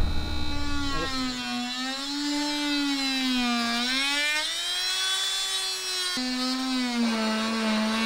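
Corded oscillating multi-tool with a plunge-cut blade cutting into a wooden boat rail. It gives a steady buzzing whine whose pitch sags and recovers as the blade loads up in the wood, with a sudden step in pitch about six seconds in.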